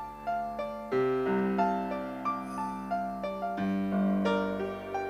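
Piano playing the song's opening chords unaccompanied by voice, a new chord struck roughly every second with each one ringing and fading. A deeper bass note enters about three and a half seconds in.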